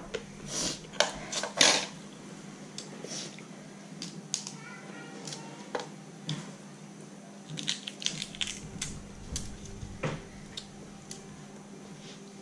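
Eating cooked Dungeness crab by hand: scattered sharp clicks and crackles of shell being picked apart, with mouth sounds of chewing. The clicks come thickest in the first two seconds and again about eight and ten seconds in.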